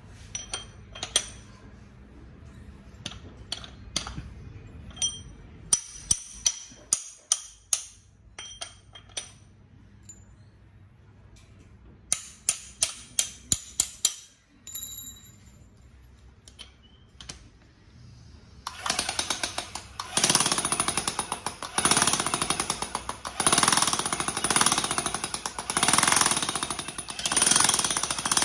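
Makita electric demolition hammer (21 mm chisel type) switched on about two-thirds of the way in, hammering rapidly in several runs with short breaks between them. Before that come scattered sharp metal clicks and clinks as the tool and its chisel bit are handled.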